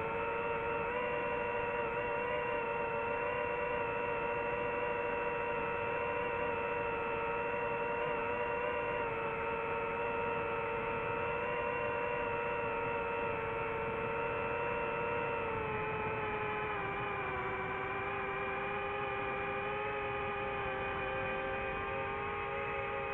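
DJI FPV drone's motors and propellers whining steadily in flight, heard from the drone itself; the pitch drops a little about two-thirds of the way through as the throttle eases.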